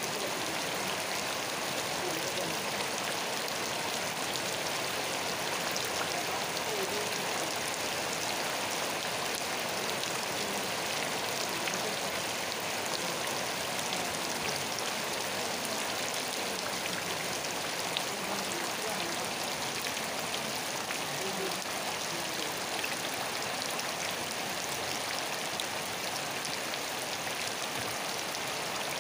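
Steady rain falling, with no thunder: an even hiss dotted with the faint ticks of single drops.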